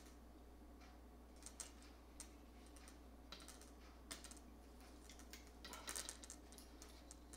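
Faint, scattered light clicks and taps from handling an Align T-Rex 450 RC helicopter's plastic and metal frame, tail boom and rotor blades, coming irregularly, with a few close together near the end.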